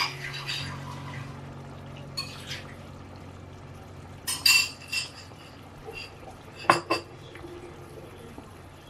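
Sauce simmering in a nonstick frying pan with a soft bubbling hiss, broken by sharp clinks of utensils against cookware, loudest in two clusters about four and a half and seven seconds in.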